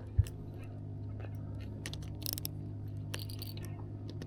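Steady low mechanical hum of a motor on a fishing boat, with one sharp thump just after the start and a few short hissing scuffs later on.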